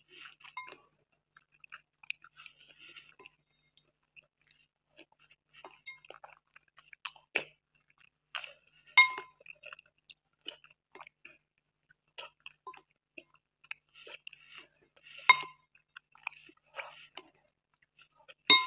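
Close-miked chewing and mouth sounds of someone eating kheer with a spoon, with the spoon clinking against a glass bowl now and then. Three louder clinks ring briefly, about 9 seconds in, about 15 seconds in, and at the very end.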